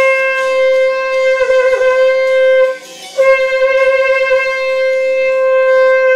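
Shofar blown in long steady blasts on a single note. The first blast breaks off about two and a half seconds in, and after a short pause a second long blast sounds on the same note. The first note wavers briefly partway through.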